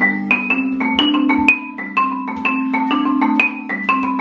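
Notes with a marimba-like mallet tone played in a quick, even run, about four to five notes a second, with lower notes ringing on beneath them.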